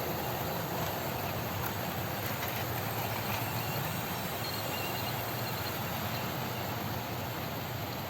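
OO gauge model train running along its track: a steady running noise of the small motor and wheels on rail.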